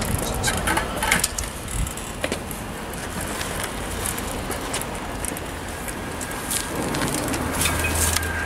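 Adult tricycle with a wire basket rolling over brick paving, rattling with many irregular clicks, over a steady low rumble.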